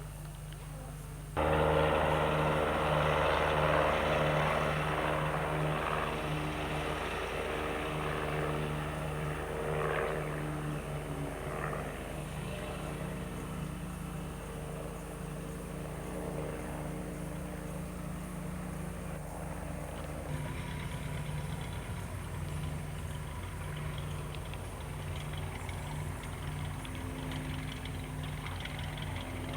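Cessna's piston engine and propeller droning steadily, heard from inside the cabin. It gets suddenly louder about a second and a half in.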